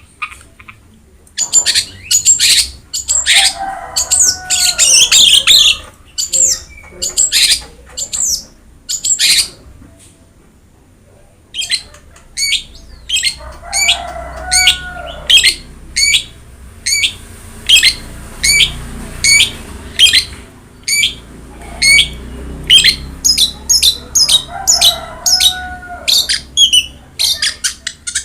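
Long-tailed shrike (cendet) singing: a long run of short, sharp, high notes about two a second, broken three times by lower warbling phrases. The song stops for about two seconds around the middle.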